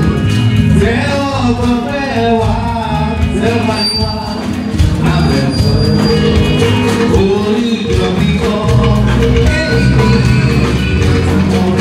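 A church choir singing with a male lead vocalist on a microphone, over a steady instrumental accompaniment.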